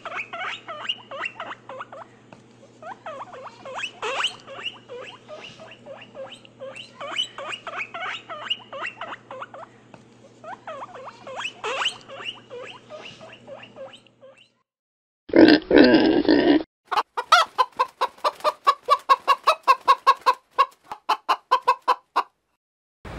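Short, high animal calls and chatter, many overlapping, for about fourteen seconds, then one loud call lasting just over a second, followed by a rapid run of short pulsed calls, about five a second, that stops shortly before the end.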